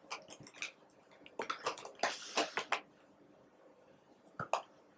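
Scattered light clicks and rustling as makeup compacts and palettes are handled, with a short rustling burst about two seconds in.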